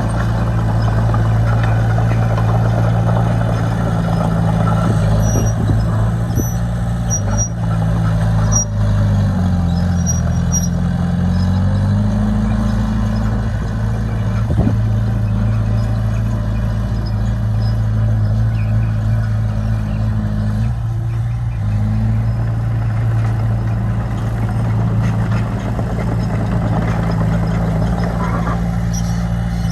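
Diesel engine of heavy earthmoving equipment running loud and steady. Its pitch sags about nine seconds in and climbs back up about three seconds later, then dips again briefly about twenty-one seconds in.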